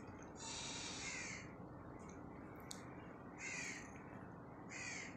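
Crows cawing faintly, a short series of harsh caws about a second or so apart.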